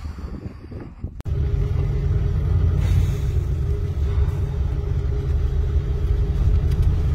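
RV engine and road noise heard from inside the cab while driving, a steady low rumble that starts abruptly about a second in.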